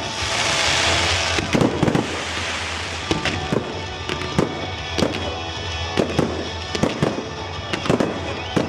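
Fireworks display: aerial shells bursting in an irregular string of sharp bangs, about one to two a second, with a hissing crackle in the first second and a half. Music plays underneath.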